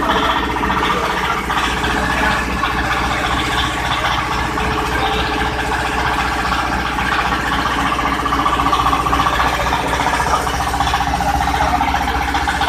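Stainless steel hammer-mill sugar pulverizer running steadily, driven by a small engine, making a constant mechanical drone.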